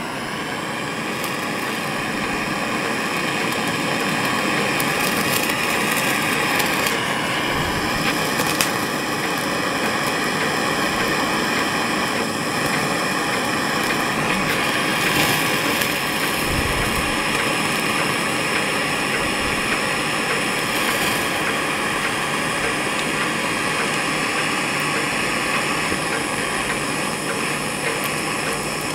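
Handheld butane blowtorch burning with a steady hiss, its flame heating a copper steam-pipe joint so the solder flows round it.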